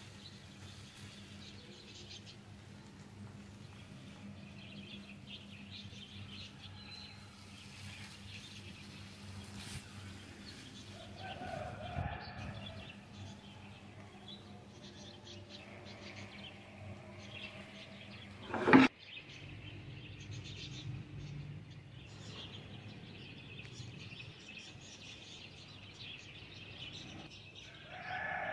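A silicone spatula stirs and scrapes a cooked chicken and vegetable mixture around a nonstick frying pan, over a steady low hum. A single sharp click comes about two-thirds of the way through, and after it the hum stops.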